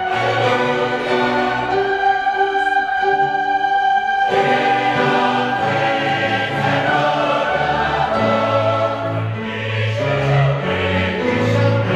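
A large mixed choir singing with orchestral accompaniment, moving through long held chords.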